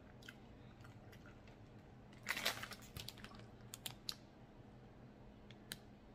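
A plastic instant-noodle packet being picked up and handled: a short crinkling rustle about two seconds in, then a few light crackles and clicks.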